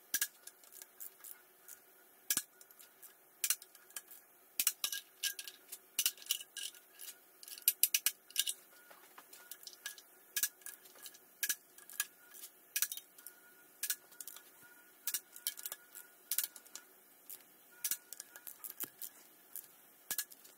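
Socket ratchet wrench clicking in quick runs of ticks, over and over, as the intake manifold bolts are run down toward their 28 Nm torque.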